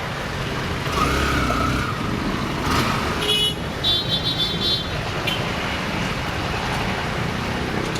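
Motorcycle riding in traffic: steady engine, wind and road noise, with a short high-pitched horn beep about three to four seconds in.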